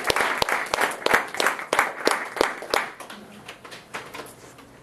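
A small audience applauding, the clapping dense at first, then thinning out and fading away about three seconds in.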